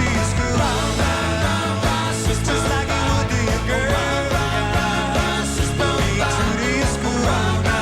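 A live rock and roll band playing, with singing over it.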